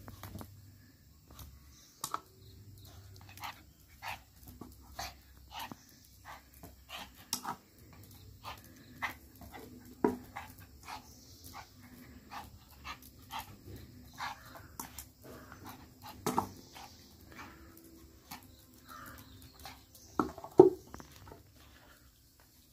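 Small white Spitz-type puppy yipping repeatedly, short sharp yips about once a second, begging for food held just out of reach. Two louder barks come about ten seconds in and again near the end.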